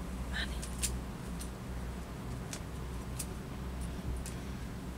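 Soft rustling of a thin fabric scarf being unwound from the neck, with a few faint light ticks scattered through it, over a steady low hum.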